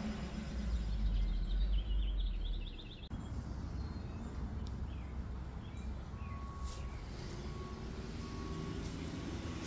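Outdoor ambience: a low vehicle rumble that fades out about three seconds in, a bird's quick run of high chirps about two seconds in, and from about six seconds faint repeated beeps at one steady pitch.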